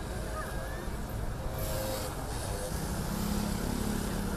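Street traffic noise, with a motorcycle passing close by under faint crowd voices. A low steady engine hum comes in about halfway through.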